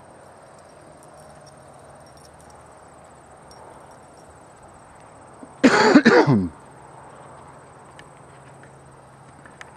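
A person coughs once, loud and close, for under a second about six seconds in; otherwise a faint steady background.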